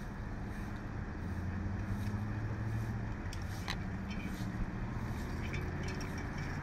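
Steady low rumble of vehicle engines idling, growing a little louder about a second in, with a few faint clicks.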